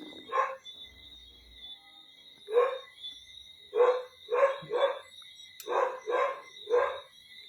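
A dog barking repeatedly, about eight short barks spread over several seconds, some in quick pairs. A faint steady high-pitched tone runs underneath.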